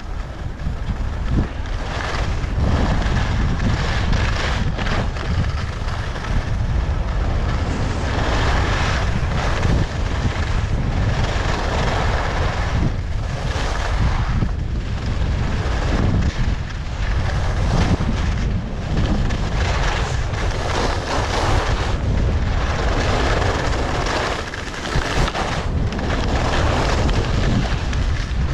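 Wind buffeting the microphone of a skier's camera at speed, a steady low rumble, over skis hissing and scraping across packed, chopped-up snow, the scraping swelling and fading with each turn. It grows louder over the first couple of seconds as speed builds.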